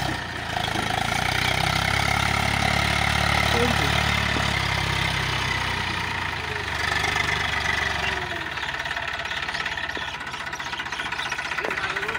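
Farm tractor's diesel engine running as the tractor drives through a field. Its low engine note is strongest for the first half and weakens about two thirds of the way in.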